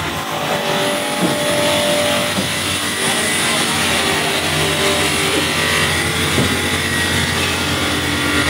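Metal-polishing machines running in a copper-ware finishing workshop: a steady, even machine drone with a wide hiss over it.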